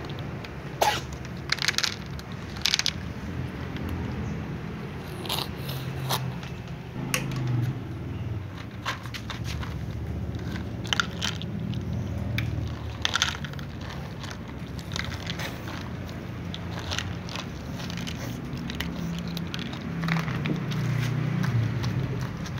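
Cats crunching dry kibble, with many scattered sharp crunches and clicks over a steady low rumble. About halfway through, kibble is poured from a plastic container into a bowl.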